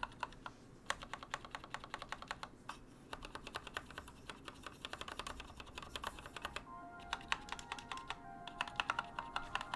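Typing on a Keychron K2 mechanical keyboard with Gateron Red linear switches in a hollow plastic case: fast runs of key clacks with a couple of short pauses.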